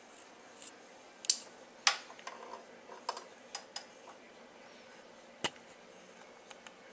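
Scattered sharp clicks and scratchy rustles as a cat noses into a wicker basket, two of them louder, over a faint steady hiss. A single sharp knock about five and a half seconds in.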